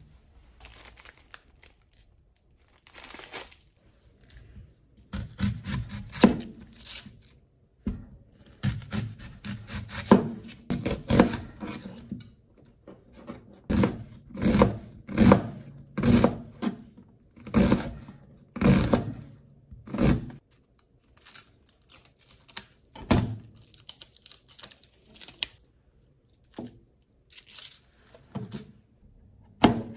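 Kitchen knife mincing onion on a plastic cutting board: uneven runs of quick knocks, with papery tearing and crinkling mixed in.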